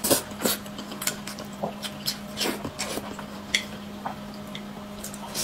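A person slurping and chewing noodles, a string of short irregular wet sounds, over a faint steady hum.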